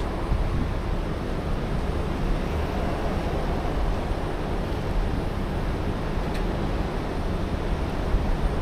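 Heavy rotator tow truck's diesel engine running with a steady low rumble, kept running to power the boom holding up a leaning box truck.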